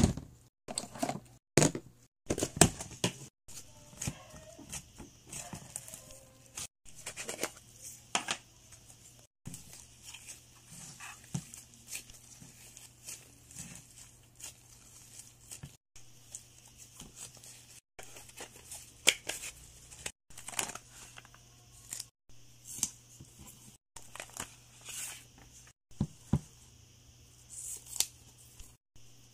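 Thick slime being stretched, squeezed and poked by gloved hands in a plastic tub, making irregular sticky crackles, pops and tearing sounds. It comes in a run of short clips, each cut off suddenly.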